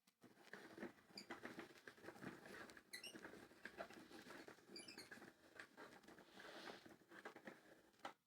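Washing machine drum turning for about eight seconds, then stopping abruptly, with a faint dense crackling, gritty grinding from its bad drum bearings.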